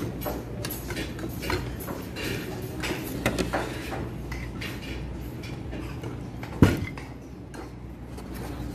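Spoons and forks clinking against plates and bowls as people eat, in scattered light clicks. One much louder knock, a bump against the table, comes about two-thirds of the way through.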